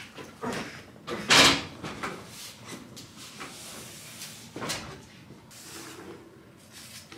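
Large cardboard box being handled and set down: one loud scraping thump about a second and a half in, then scattered lighter knocks and cardboard rustles.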